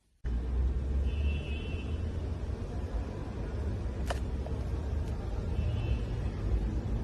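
A steady low rumble that cuts in abruptly just after the start, with a faint high tone twice and a single sharp click about four seconds in.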